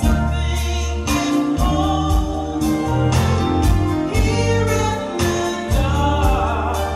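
A woman singing a slow soul ballad live into a microphone, backed by a band with sustained bass notes and steady drum and cymbal strikes.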